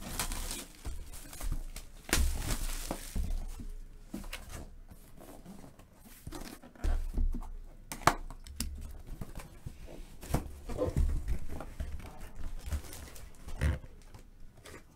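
Plastic shrink wrap being torn and crinkled off a cardboard box, with irregular rustling and a few sharp knocks and scrapes as the box is handled.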